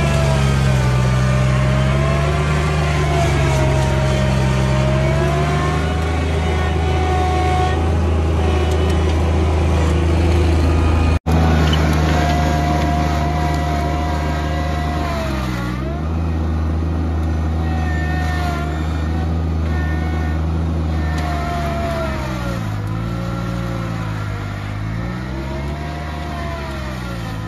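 John Deere 2305 subcompact tractor's 24-horsepower three-cylinder diesel working hard under load, pulling a single 14-inch moldboard plow through garden soil. The engine speed repeatedly sags and recovers as the plow bites, most often in the second half.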